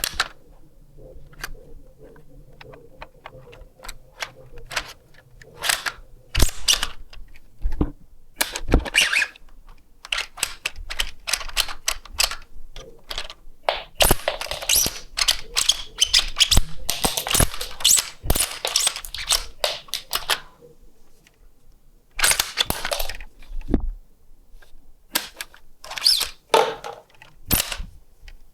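Plastic clicks and clacks of a 3D-printed rifle replica's mechanism being worked by hand, scattered at first, then a dense run of rapid clattering about halfway through and more bursts near the end.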